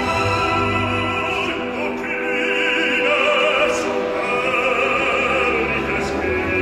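Opera excerpt: a trained operatic voice sings long held notes with wide vibrato over a full orchestra.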